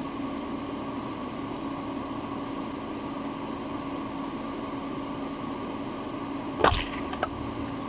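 Steady hum of a truck running with its heater on, heard from inside the cab. About six and a half seconds in, a single sharp crack of a Marlin Glenfield Model 60 .22 LR rifle shot, followed by a couple of faint clicks.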